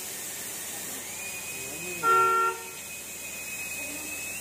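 A single short car horn beep, about half a second long, near the middle, over a faint steady high-pitched whine and background hiss.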